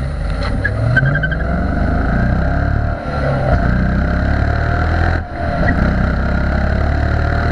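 2015 Dodge Challenger R/T's 5.7-litre Hemi V8 at wide open throttle, rising in pitch as it pulls through the gears of its manual transmission. It dips briefly twice, about three and five seconds in, at the gear changes.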